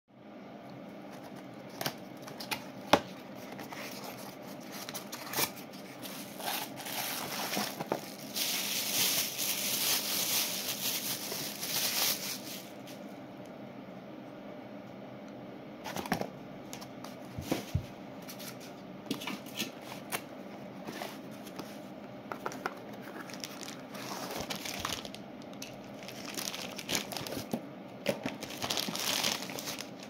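Cardboard boxes and packaging of compression horn drivers being handled and opened: rustling and scraping, with a longer stretch of rustling in the middle and scattered sharp knocks and clicks as the drivers are lifted and set down, over a faint steady hum.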